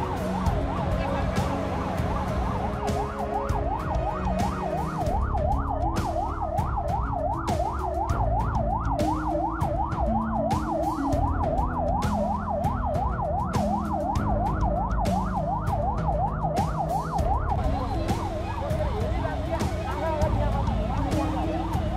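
Emergency vehicle siren sounding. It wavers at first, switches a few seconds in to a fast up-and-down yelp of about three or four sweeps a second, then goes back to a slower waver near the end. A low rumble and scattered sharp clicks run underneath.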